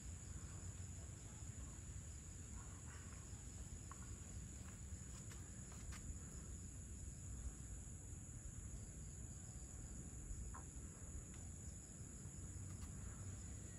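Evening insect chorus: a steady, high-pitched insect drone that never lets up, with a few faint short chirps scattered through it.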